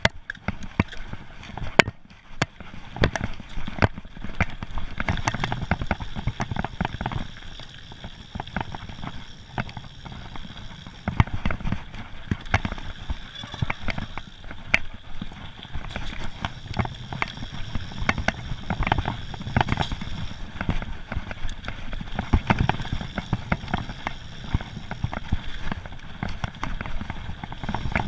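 Mountain bike riding fast down a loose, rocky gravel trail: tyres crunching over stones, with frequent sharp rattles and knocks from the bike over the rough surface.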